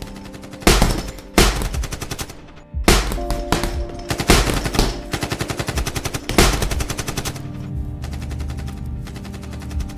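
Movie-style gunfire sound effects: heavy, echoing shots and rapid bursts of automatic fire, loudest in the first half, over a sustained dramatic music score.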